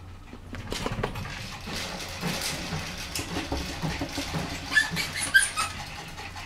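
Puppy panting in quick, even breaths, with a few short high squeaks about five seconds in.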